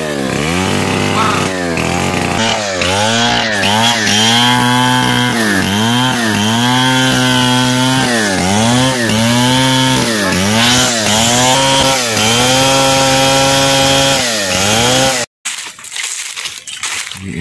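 Two-stroke chainsaw engine running and being revved up and down over and over, its pitch dipping and climbing about once a second. It stops abruptly about fifteen seconds in.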